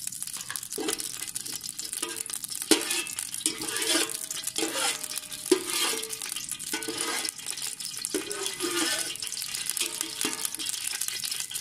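Perforated steel skimmer stirring whole cloves and cinnamon in hot oil in a steel pot: a light sizzle of the spices frying, with the skimmer scraping the pot bottom and several sharp clinks.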